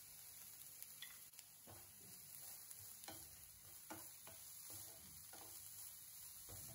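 Wooden spatula stirring chopped onion, garlic and capsicum as they fry in oil in a non-stick pan. The strokes come as faint scrapes, about two a second, starting about a second in, over a low sizzle.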